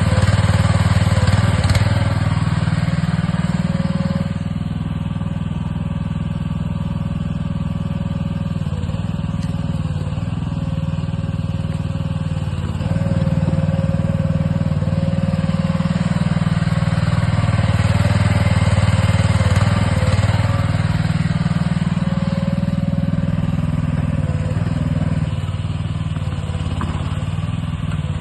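AGT MX12R mini excavator running under load, its engine note swelling and easing every few seconds as the hydraulics work, with a thin steady whine through it.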